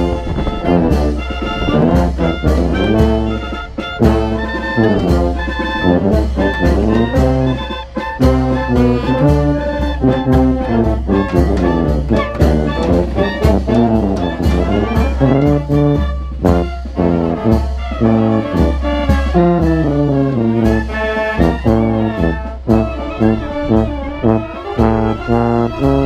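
Brass band playing, with the tuba's bass line loud and close, trumpets and trombones carrying the tune above it, and a steady beat of percussion hits.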